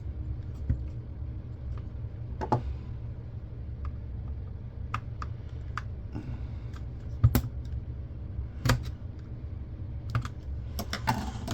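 Scattered sharp clicks and light knocks of plastic casing parts and small tools being handled as an old camcorder is taken apart, over a steady low hum.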